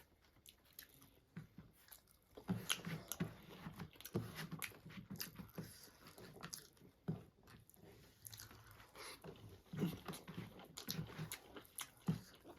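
Close-up eating sounds: chewing with wet mouth clicks and smacks, and crunchy bites at irregular moments.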